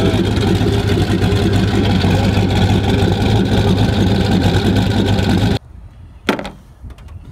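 Turbocharged LS V8 in a Chevy Tahoe idling steadily, heard loud at the exhaust tip. The sound cuts off suddenly about five and a half seconds in, leaving a much quieter stretch with a single knock.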